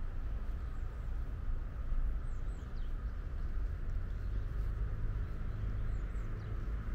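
Outdoor ambience: a steady low rumble of distant city traffic, with a few faint, high bird chirps about two seconds in and again near the end.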